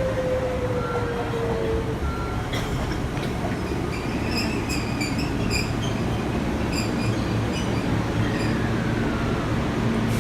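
Electric express train pulling into a station platform: a steady low rumble with a motor whine falling in pitch over the first two seconds, then high-pitched squealing from the running gear as it brakes, for a few seconds in the middle.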